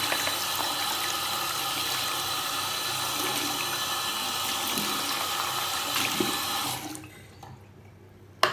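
Water running from a tap into a sink, shut off about seven seconds in, followed by a single sharp knock near the end.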